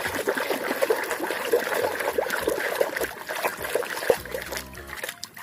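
Water splashing and trickling as a muddy toy is swished and rubbed by hand in a basin of water, with many small quick splashes. It dies down in the last second or so.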